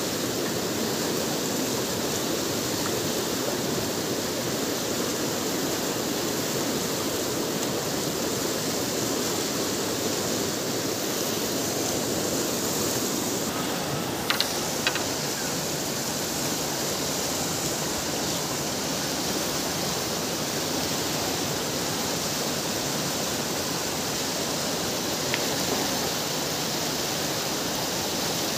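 Fast mountain river rushing over rocks: a steady, even roar of turbulent water. A couple of brief sharp knocks stand out about halfway through, and one more near the end.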